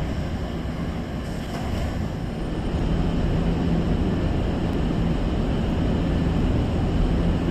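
Steady low rumble of a Nankai Koya Line electric train approaching the station from a distance, growing louder about three seconds in.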